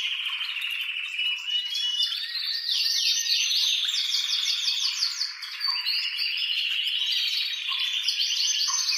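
Male domestic canary singing an excited breeding-season song: fast rolling trills and runs of rapidly repeated high chirps, with a quick series of sweeping notes about halfway through.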